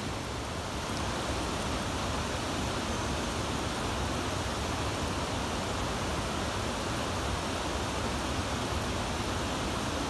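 Steady rushing of falling water from a waterfall, an even roar with no breaks.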